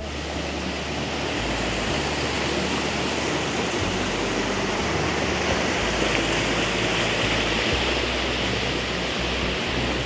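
Mountain stream rushing over rocks: a steady, even hiss of moving water.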